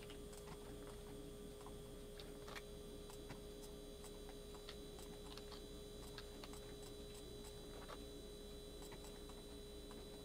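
Faint, irregularly spaced clicks of a computer mouse and keyboard during 3D-modeling work, over a steady electrical hum.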